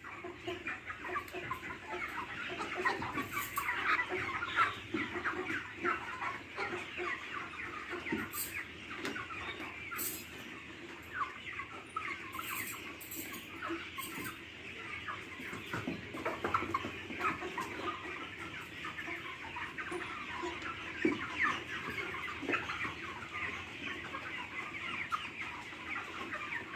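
A flock of egg-laying hens clucking continuously, many birds calling over one another.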